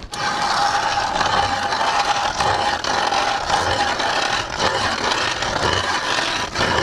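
Hand ice auger's steel blades cutting into thick lake ice, a steady scraping grind as it is cranked round.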